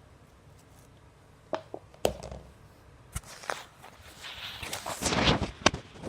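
Cloud slime being squeezed and stretched by hand: a few sharp sticky pops and clicks from about a second and a half in, then a longer crackling squish near the end.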